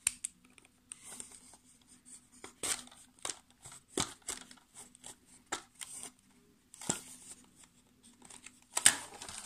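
Faint, irregular scratches and small clicks of hands working with small art supplies: a water brush touching paper and a plastic watercolour case being handled.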